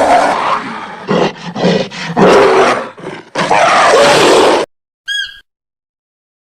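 A large wild animal roaring: a series of loud, rough calls over about four and a half seconds that break off suddenly. A short high-pitched chirp follows about half a second later.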